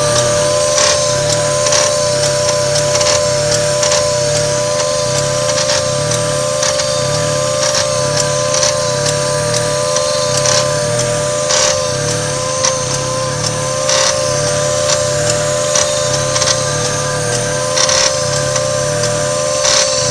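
1995 Mazda MX-3 engine idling with a click about once a second. With each click the idle drops sharply and jumps back up, with a slight rattle and a steady whine that wavers in pitch in time with the dips. The owner blames the air conditioning for the clicking.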